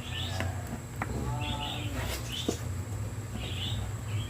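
Small birds chirping in short repeated bursts over a steady low hum, with a couple of sharp clicks.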